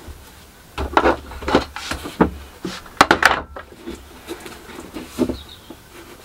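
Workbench handling noises: irregular knocks, taps and scrapes of wooden strips and clamps against a cyclekart nosecone, with a short clatter about three seconds in.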